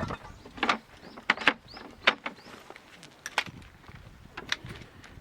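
Irregular light knocks and clicks of small objects being handled and set down, the loudest at the very start.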